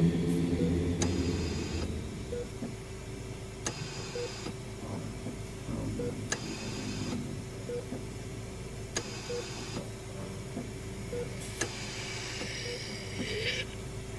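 Layered horror-ambience sound effects of a derelict hospital: a steady electrical hum with a faint regular beep about every second and a half, sharp clicks every few seconds, and short bursts of mechanical whirring. Near the end, wavering tones slide up and down.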